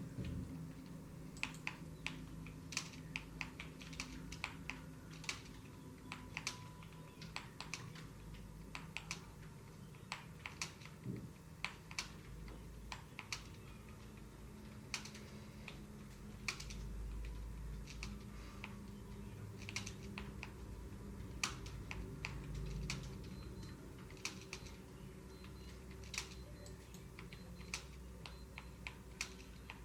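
Computer keyboard being typed on: an uneven run of key clicks at varying speed, with short pauses between bursts, over a steady low hum.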